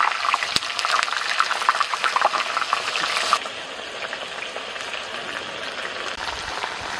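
Raw potato slices frying in hot oil, a dense sizzle with many small crackles as the slices go in. About three and a half seconds in the crackling drops suddenly to a softer, steadier sizzle.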